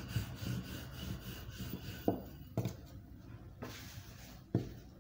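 Wooden rolling pin rolling over chapati dough on a floured countertop: a steady rubbing sound, then a few sharp knocks in the second half.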